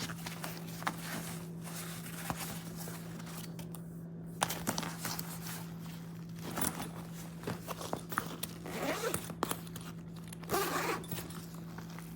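Zippers on a fabric laptop backpack being worked, with irregular rasps and rustles as the bag is handled, and a few louder rasps scattered through.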